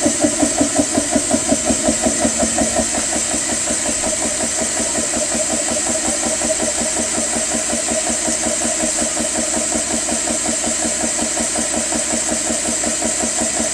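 GX CS3 high-pressure PCP air compressor running as it fills an air rifle's reservoir toward 3000 psi: a steady, rhythmic pumping of about three to four strokes a second, more pronounced in the first few seconds and then evening out, with a constant high hiss over it.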